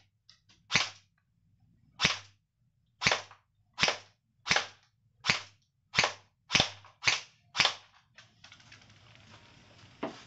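An E&C 638 electric airsoft gun fires single shots. There are about ten sharp snaps, spaced half a second to a second apart and coming faster toward the middle, a few fainter clicks, and one more shot near the end.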